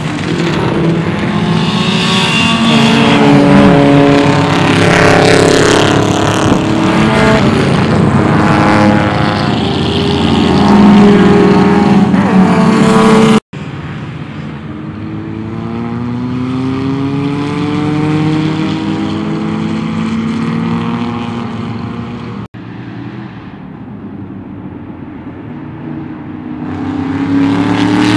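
Race car engines passing at speed, among them the Ford 460 V8 of a 1975 Ford LTD rebodied as a 1951 Plymouth. The engine notes rise and fall in pitch as the cars go by. The sound breaks off sharply twice, where the footage is cut.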